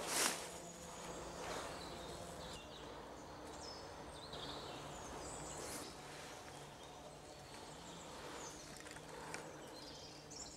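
Quiet woodland ambience: a faint steady background with short bird chirps now and then, and a brief rustle at the very start.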